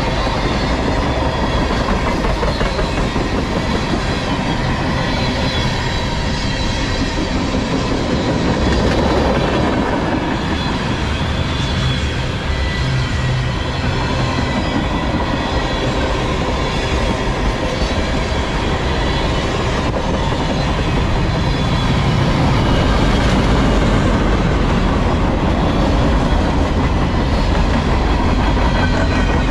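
Freight cars of a mostly empty manifest train rolling past close by: tank cars, a centerbeam flatcar and boxcars on steel wheels. The noise is steady and loud, growing a little louder in the last several seconds.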